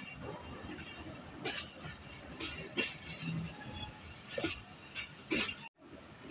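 Passenger train's wheels clicking and clanking over the points and rail joints at low speed: irregular sharp metallic clinks, six or seven of them, over a low running rumble.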